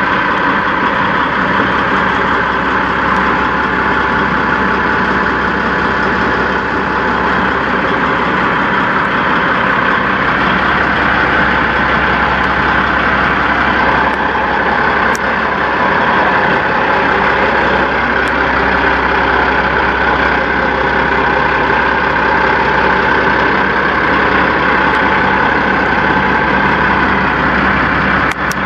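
Peterbilt semi truck's diesel engine idling, a steady even hum.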